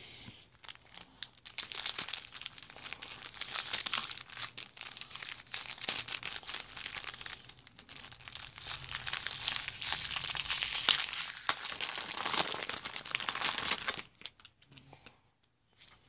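A 1990 Topps baseball card pack wrapper being torn open and crinkled: a dense crackling that starts about a second and a half in and stops a couple of seconds before the end.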